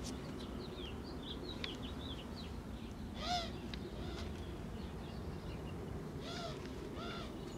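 Faint bird calls: small high chirps at first, then a few short arched, hoot-like calls near the middle and toward the end, over a steady low background hum.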